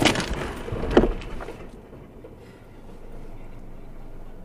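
Tail end of a car's rear-end collision, heard from inside the car: a knock right at the start and another thump about a second in, then the crash noise dies away to a low steady hum.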